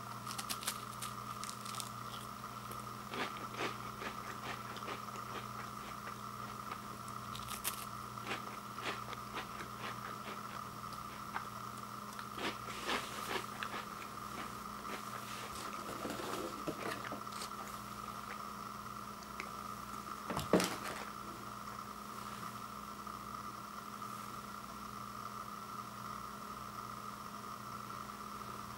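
Ritz crackers being bitten and chewed, with scattered crisp crunches through the first half, then one sharper knock about two-thirds of the way through.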